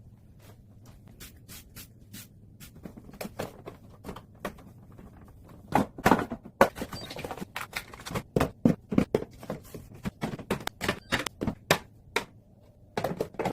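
Irregular clicks, taps and light knocks of hard objects being handled and set down during fridge cleaning. They are faint at first and become louder and denser from about six seconds in.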